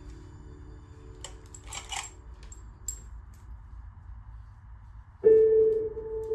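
Soft background music with sustained notes and a few light metallic clicks. About five seconds in, a loud bell-like chime note starts sharply and slowly fades.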